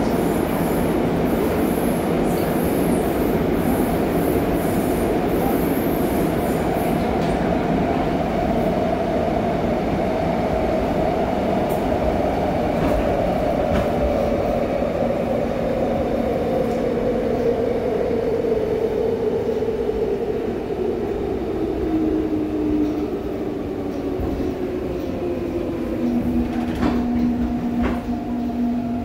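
Seoul Subway Line 4 train heard from inside a passenger car: steady wheel-and-rail running noise, with the traction motors' whine falling in pitch as the train brakes. The whine settles into a low steady tone near the end as the train reaches the station platform.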